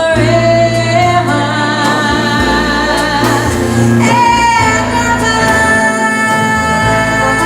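Live lounge band of keyboard, bass and drums playing the close of a slow song, with a female singer holding long notes. About four seconds in she steps up to a higher held note.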